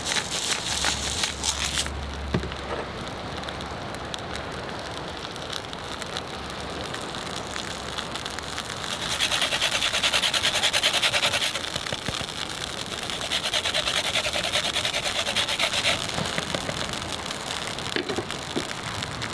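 A hand pepper grinder grinding in rapid clicks for the first couple of seconds. Later a lemon is rubbed against a hand grater in two rasping stretches, the first about ten seconds in and the louder of the two. A steady wash of surf and wind runs underneath.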